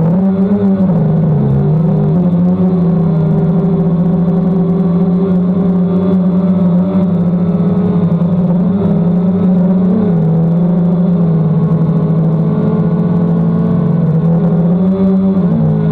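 DJI Phantom quadcopter's motors and propellers humming steadily, the pitch dipping and rising slightly as the motors adjust.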